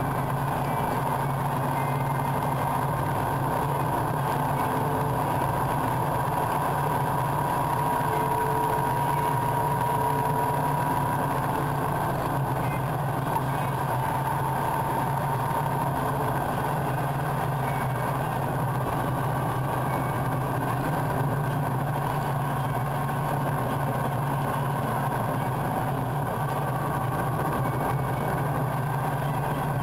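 Vehicle engine and road noise heard from on board while driving at a steady pace, the engine note holding a steady low pitch.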